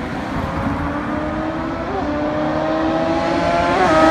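Honda CBR1000RR sport bike's inline-four engine approaching under acceleration, its note rising slowly in pitch and growing steadily louder, with two brief wobbles in pitch.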